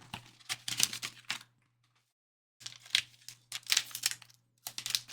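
Plastic card packaging being handled and opened: crinkling and rustling with sharp clicks, in three short bursts with brief pauses between them.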